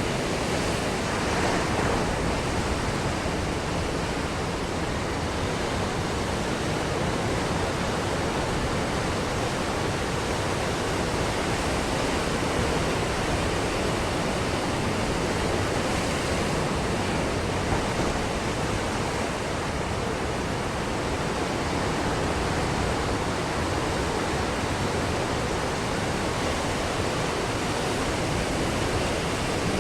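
Ocean surf breaking on a beach: a steady, even wash of water noise with only slight rises and falls.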